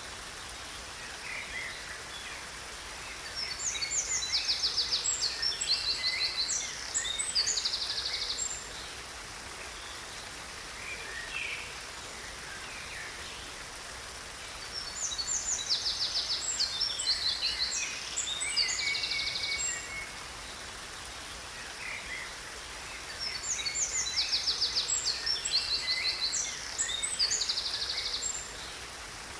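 Songbirds singing in three bouts of fast, high trills and chirps, each lasting several seconds, over a steady rush of falling water.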